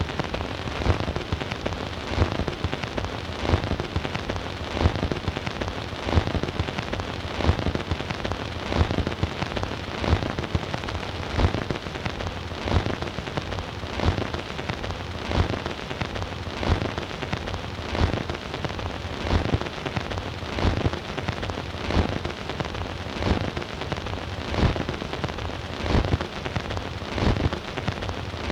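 Surface noise of a 78 rpm record's lead-in groove playing on a record player: dense crackle and hiss, with a louder click-thump coming back regularly about every second and a half.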